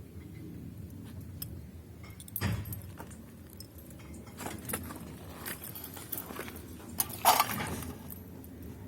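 Small metal objects clinking and rattling against each other in a string of irregular sharp clinks, loudest about seven seconds in, over a low steady rumble.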